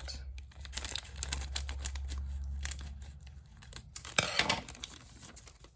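Paper leaflets and packaging being handled and unfolded: irregular crinkling, rustling and small clicks, louder for a moment about four seconds in.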